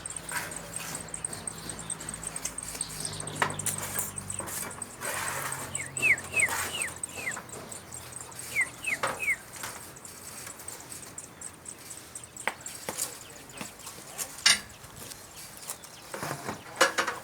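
Small bird chirping: two short runs of quick, high, downward-sliding chirps, four and then three, with scattered clicks between.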